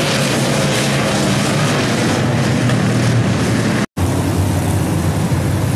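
Dirt-track stock car engines running hard around the track, a loud steady drone of several race cars. The sound drops out briefly at an edit about four seconds in, then carries on.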